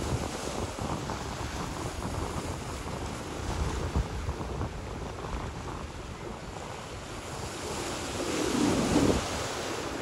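Sea waves washing onto the shore, with wind buffeting the microphone. The surf swells louder about eight seconds in.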